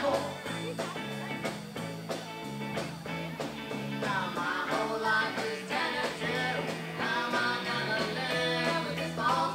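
Live rock band playing an original song: electric guitar and a stepping bass line over drums. A lead melody line comes in about four seconds in.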